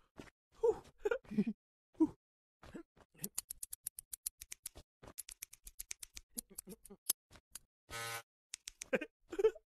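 Cartoon sound effects: short vocal grunts, then rapid scissors snipping from about three seconds in, around nine snips a second and then slower. A brief buzz comes about eight seconds in, and more grunting follows near the end.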